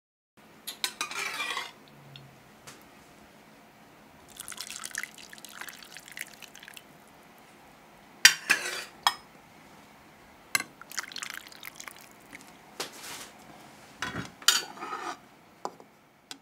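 Liquid trickling and dripping in short stretches, with several sharp clinks of dishware.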